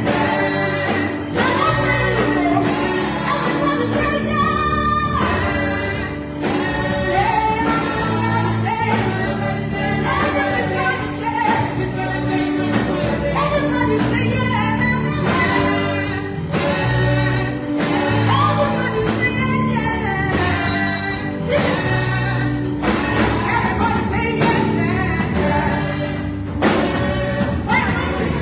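Gospel music: a choir or group singing over a band with bass and drums.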